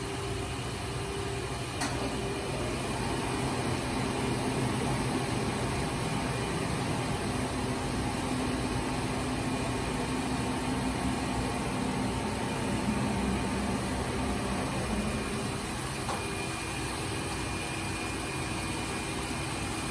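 Sinker EDM machine flooding its work tank with dielectric fluid: the pump runs with a steady rushing hum as the fluid churns in around the workpiece.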